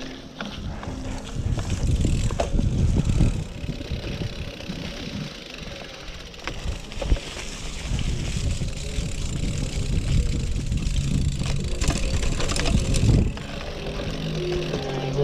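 Cyclocross bike ridden over a dirt trail strewn with dry leaves: tyres rumbling and the bike rattling over bumps, with wind on the action camera's microphone. The noise comes in uneven surges with scattered knocks.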